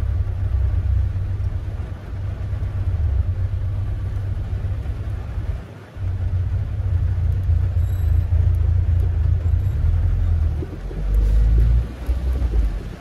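Engine and road rumble of a lowered Tofaş, heard from inside the cabin while it drives. The low rumble dips briefly about six seconds in and is loudest shortly before the end.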